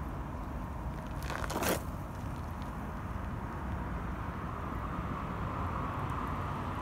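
Outdoor ambience with a low wind rumble on the phone's microphone and a brief crackly rustle of the phone being handled about a second and a half in. A faint steady hum comes in about halfway through.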